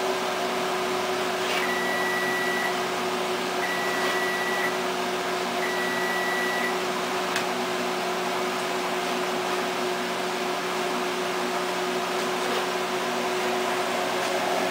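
Steady whirring hum of a kitchen appliance fan, with a kitchen timer beeping three times in the first seven seconds, each beep about a second long and two seconds apart. A light knock follows soon after.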